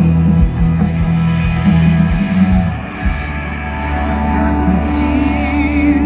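Rock band playing live through a festival sound system, heard from the crowd: guitar over bass and drums. The drum hits drop away about three seconds in, while a held bass note and guitar carry on.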